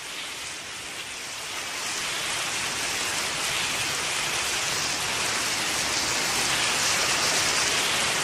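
Steady rain falling, fading in and growing gradually louder over the first few seconds.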